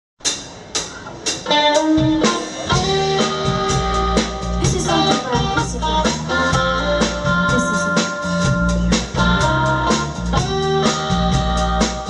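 Live band playing an upbeat number with electric guitar, drum kit and congas. It starts with a few sharp beats about twice a second, and the full band with bass comes in about two seconds in.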